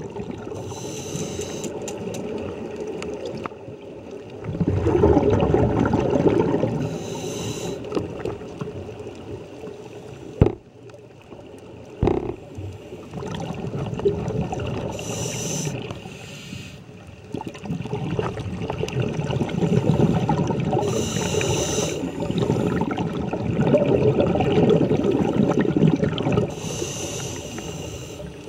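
Scuba regulator breathing underwater: a hissing inhale every six seconds or so, each followed by a long rumbling, gurgling rush of exhaled bubbles. Two sharp knocks come about ten and twelve seconds in.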